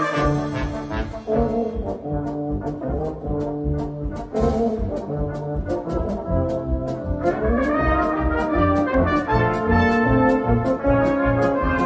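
Brass band playing a march: cornets, euphoniums, tubas and trombones in full harmony over a steady bass line, with snare and bass drum keeping a regular beat.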